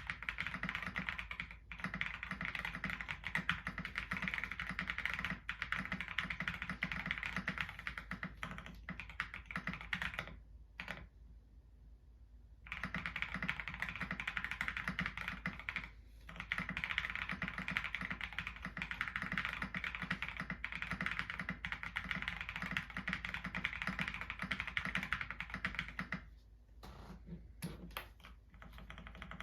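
Continuous typing on a QK65 mechanical keyboard with lubed Boba U4T tactile switches, an FR4 plate, foam and silicone dampening and KAT 9009 keycaps: a dense run of keystrokes. The typing stops for about two seconds around a third of the way in, and briefly twice more.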